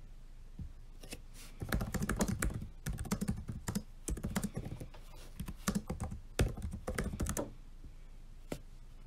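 Typing on a laptop keyboard: a quick run of key clicks starting a second or two in and lasting about six seconds, with a few lone key presses before it and a single click near the end.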